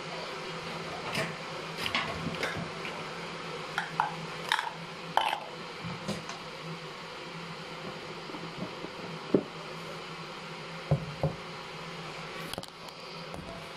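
Scattered light knocks and clinks of tableware being handled, mostly in the first half, over a steady low hum.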